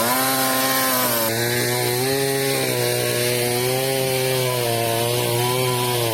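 Two-stroke chainsaw running at high revs while cutting through a thick fallen angsana tree trunk. Its pitch sags and recovers as the chain bites into the wood.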